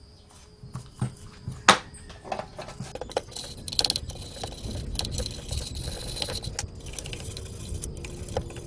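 A hand tool scraping over the aluminium crankcase of a Yamaha Mio Sporty scooter: two sharp knocks in the first two seconds, then rapid scratchy scraping strokes, with a hissing edge for a few seconds in the middle.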